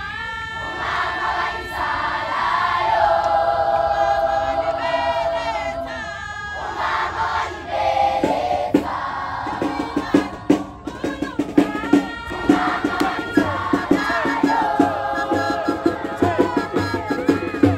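A large school choir singing in harmony on long held notes. About eight seconds in, the song turns rhythmic, with sharp beats in time, about two to three a second, under the voices as the singers dance.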